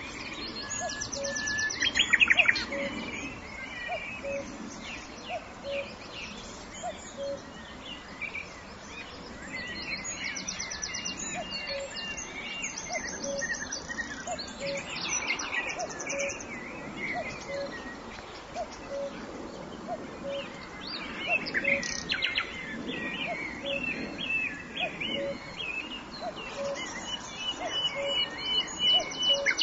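Forest ambience of many songbirds chirping and calling over each other, with rapid trills, the loudest about two seconds in. A low short note repeats evenly about every three-quarters of a second throughout.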